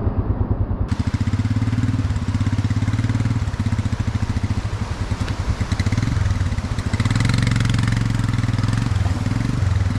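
Royal Enfield Himalayan motorcycle's single-cylinder engine running steadily while riding, its firing pulses close and even.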